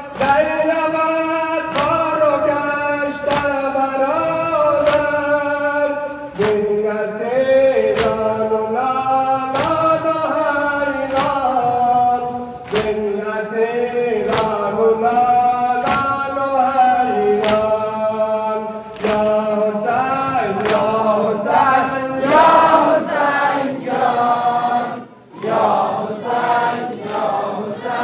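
A group of men chanting a Muharram nowha (mourning lament) in unison, with a loud, even beat of chest-striking (sine-zani) about once a second. The chant breaks off briefly near the end and then picks up again.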